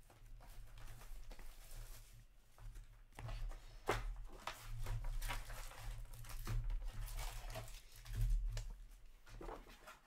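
Upper Deck hockey trading cards and their packaging handled close to the microphone: irregular rustling and short flicks and clicks. A steady low hum runs underneath.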